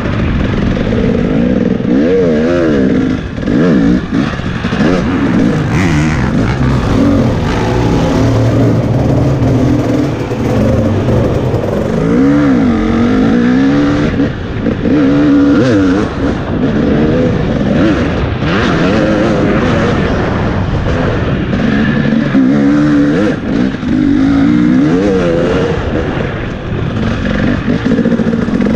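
Off-road dirt bike engine revving hard and easing off over and over, its pitch climbing and dropping with the throttle and gear changes as it is ridden around a race course.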